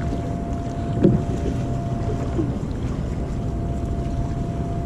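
Wind rumbling on the microphone of a small boat on open water, with a faint steady whine throughout and a short low sound about a second in.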